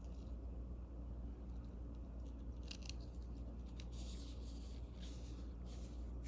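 Rustling and light clicks from a knife's opened cardboard-and-plastic retail packaging being handled, starting a little under halfway in, over a steady low hum.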